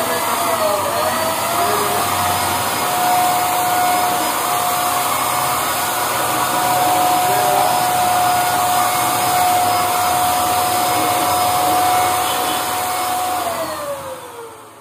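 Handheld electric paint spray gun running while spraying paint: a steady motor whine over the rush of air and spray, wavering a little at first. Near the end it is switched off and the whine falls in pitch as the motor winds down.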